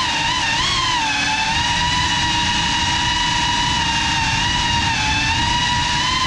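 Geprc Cinelog 35 FPV cinewhoop's motors and ducted propellers whining in cruise, over a rushing noise of airflow. The pitch wobbles with throttle changes in the first second, holds steady, then climbs again near the end.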